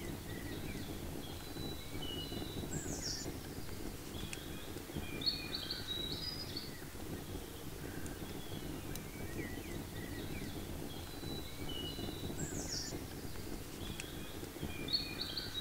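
Songbirds singing in woodland, one song phrase repeating about every ten seconds, over a steady low outdoor rumble. A light knock about five seconds in.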